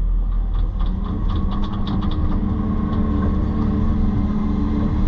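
Excavator's diesel engine running, its note rising about a second in as it takes hydraulic load, with a run of small clicks and scrapes over the following second or so.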